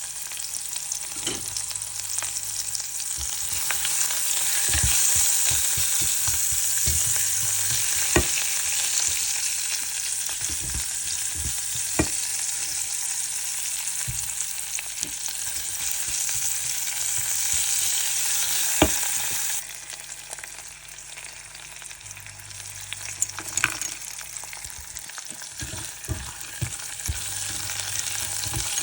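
Food frying in hot oil in a pan, sizzling steadily while a spatula stirs it, with scattered sharp knocks of the spatula against the pan. The sizzle drops suddenly about two-thirds of the way through, then carries on more quietly.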